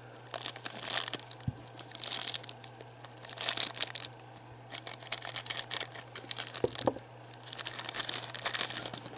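Clear plastic bag around a prepainted plastic miniature crinkling and tearing as it is worked open by hand, in several separate spells of crackling.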